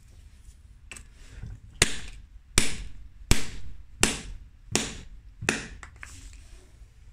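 Large hammer pounding a cast piece of Smooth-On Task 12 tooling resin laid on paper over a brick: six sharp blows about three-quarters of a second apart, each dying away quickly. The resin piece takes the blows without breaking.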